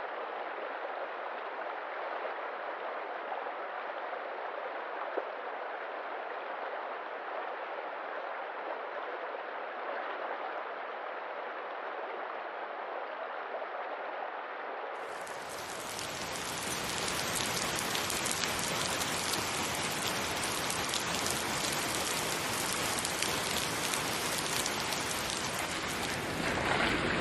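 Steady sound of running water, like a flowing stream. About halfway through it cuts abruptly to a louder, fuller recording of falling rain.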